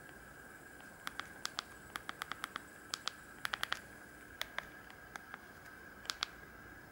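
Plastic keypad buttons of a Samsung GT-E1200Y mobile phone clicking as they are pressed, about twenty sharp clicks in irregular runs, to scroll to the next ringtone. A faint steady high whine sits underneath.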